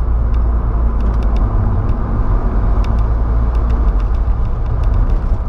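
Volkswagen Saveiro pickup driving at highway speed, heard from inside the cab: a steady low engine and road rumble with tyre noise.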